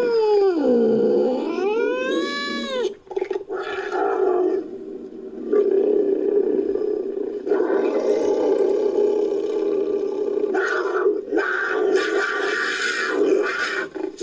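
Designed creature vocalizations built from wild cat recordings (lynx, bobcat and cougar): a yowl that dips and rises in pitch over the first three seconds, then a long, rough, growling call with a few short breaks.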